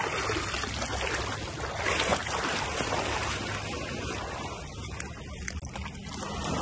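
Water splashing and trickling, with a low steady hum underneath.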